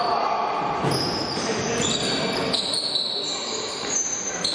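Game sounds on a basketball court: a ball bouncing on the floor amid the general noise of play in a large hall.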